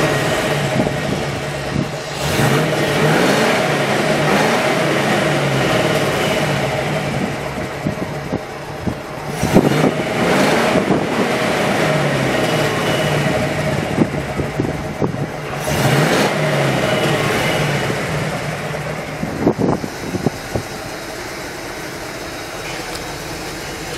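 The PAZ-32053 bus's engine runs at idle and is revved up and let back down a few times, with the pitch rising and falling. It settles to a quieter steady idle near the end.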